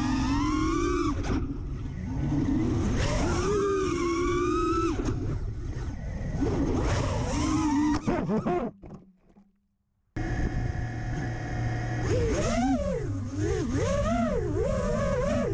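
FPV quadcopter's brushless motors whining, the pitch rising and falling with the throttle. The sound cuts out for about a second and a half past the middle, then comes back.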